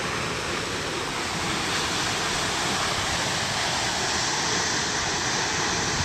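Waterfall pouring onto rocks: a steady, even rush of falling water.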